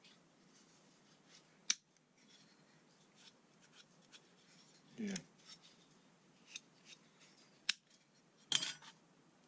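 Small metal hand tools being handled, with three sharp clicks: one about two seconds in and two close together near the end.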